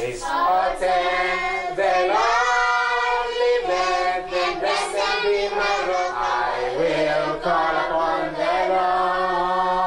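A congregation of adults and children singing together, holding long notes with the pitch sliding between them.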